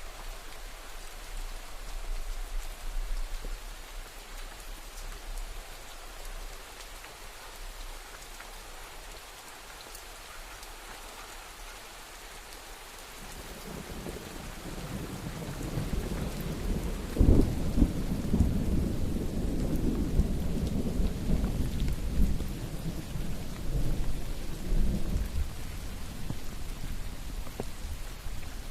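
Steady rainfall with a long roll of thunder. The rumble builds from about halfway through, is loudest a few seconds later with a sharp crack-like peak, then rolls on and fades near the end.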